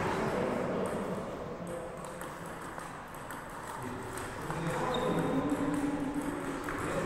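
Table tennis balls ticking off paddles and table tops in short, irregular clicks.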